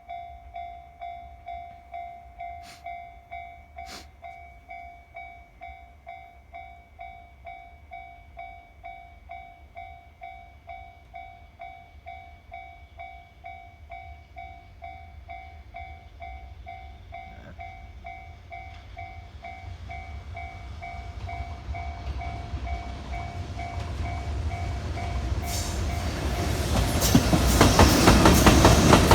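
Japanese level crossing warning bell ringing a steady 'kan-kan' at about two strikes a second as a freight train approaches with a growing rumble. In the last few seconds the passing train's wheel and rail clatter grows loud and covers the bell.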